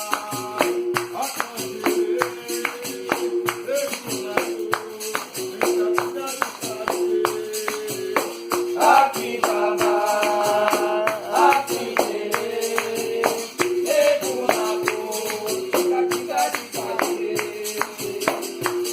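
Capoeira roda music: a berimbau plays a steady two-note pattern under a quick, regular pandeiro rhythm. A voice sings a held phrase about halfway through.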